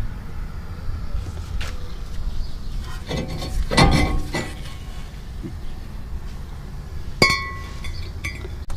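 Metal tools and brake parts clanking and clinking as they are handled, with a cluster of knocks in the middle and one sharp, ringing metal clink about seven seconds in, over a steady low rumble.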